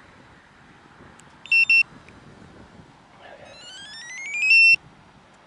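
StarLine two-way car alarm remote fob beeping: two short beeps about a second and a half in, then a quick run of stepped tones rising in pitch near the end, the fob answering a remote-start command.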